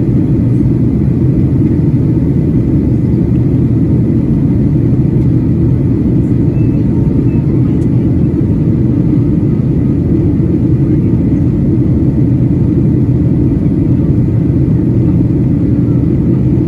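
Steady low rumble of a Boeing 737-800's cabin in flight: its CFM56-7B engines and the airflow past the fuselage, heard from inside the passenger cabin, with a faint steady high whine over it.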